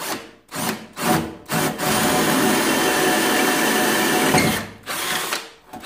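Parkside PBSA 20-LI A1 20 V cordless drill drilling a hole in a wall. A few short trigger bursts start the hole, then about two and a half seconds of steady drilling, which tails off in a couple of short bursts near the end.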